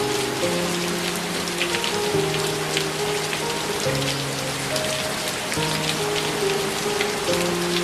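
Steady rain falling on a surface, a dense patter of drops, over soft, slow background music with long held notes.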